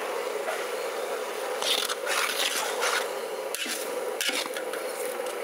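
A long metal ladle stirring and scraping chopped vegetables coated in chilli powder around a large metal pot, in several scraping strokes over a steady low hum.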